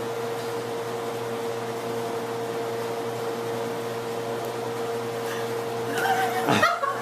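Steady mechanical hum with a constant mid-pitched tone, like a household appliance or fan running. Near the end a short sound sweeps quickly down in pitch, and voices begin.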